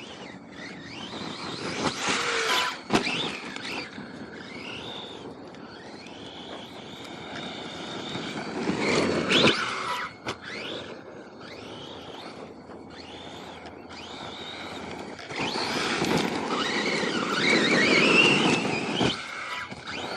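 Electric RC car driven hard over dirt, its motor whine rising and falling with the throttle over the noise of the tyres, in three louder runs, the longest and loudest near the end.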